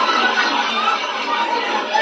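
Comedy-club audience laughing in a steady, crowded mass of voices, with closer chuckling mixed in.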